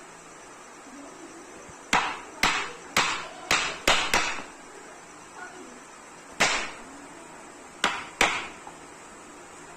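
Hand tool striking in woodworking, most like a hammer: nine sharp blows, a quick run of six about two seconds in, then one more and a final pair spaced further apart.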